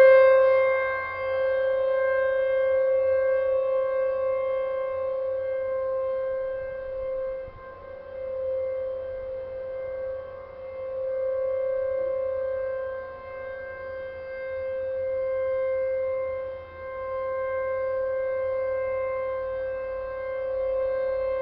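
Tempest outdoor warning siren sounding the steady alert signal: one held tone that never changes pitch, swelling and fading in loudness every few seconds.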